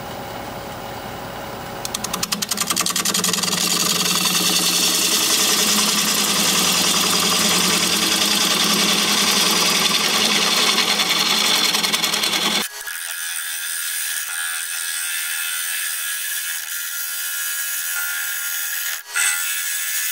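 Wood lathe spinning a live oak bowl while a bowl gouge cuts into the hard wood: a steady hum of the lathe, then, about two seconds in, a loud even rough shearing noise of the tool throwing off chips. About two-thirds of the way through, the sound thins abruptly, losing its low end.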